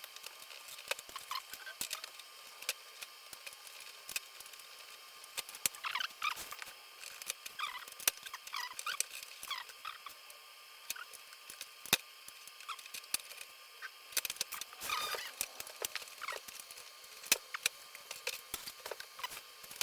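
Quick scattered clicks and short high squeaks of plastic parts being handled and pried, as the inner bezel frame of a Sony 65-inch LED TV is worked loose.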